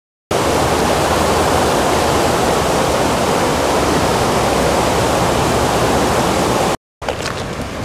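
Knik River, a wide, fast-flowing glacial river, rushing in a loud steady roar of water. It starts a moment in and cuts off abruptly near the end.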